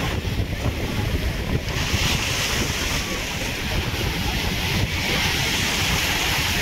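Sea surf breaking and washing in the shallows, with wind buffeting the microphone; the hiss of the wash grows louder about two seconds in.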